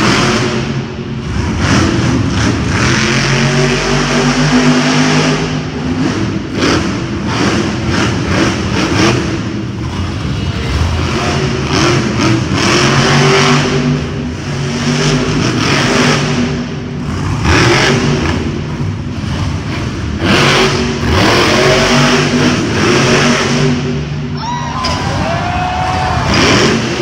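Grave Digger monster truck's supercharged, methanol-burning V8 revving up and down over and over, its pitch rising and falling as the truck jumps and manoeuvres.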